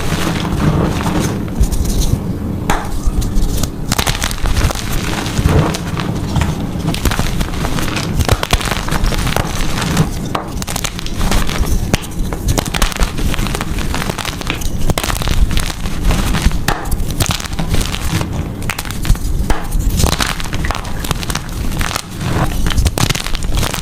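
Blocks of gym chalk being crushed and crumbled, a dense run of crunching and crackling with many sharp snaps that keeps going without a break.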